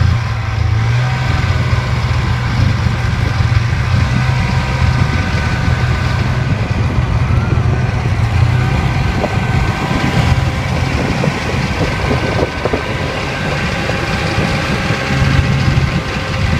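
Polaris Indy Trail snowmobile's fan-cooled 488 two-stroke twin running steadily at a fairly even pitch.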